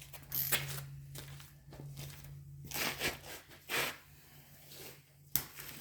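Faint scattered rustling and scraping of someone moving about and handling parts, over a steady low hum, with a sharp click near the end.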